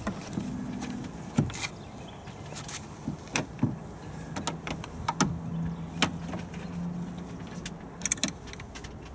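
Scattered sharp plastic clicks and taps as a 2002 Jeep Cherokee tail light assembly is pressed home and its mounting screw is started by hand, with a faint steady low hum underneath through the middle.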